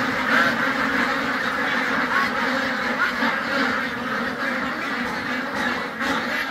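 A large flock of white domestic ducks quacking all together in one dense, continuous chorus of overlapping calls.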